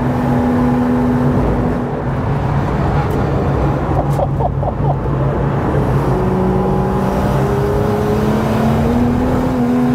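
BMW M135i race car's N55 turbocharged straight-six heard from inside the cabin over tyre and road noise on track. The engine note drops about two seconds in as the car slows for a corner, then from about six seconds the revs climb steadily as it accelerates hard out of the bend.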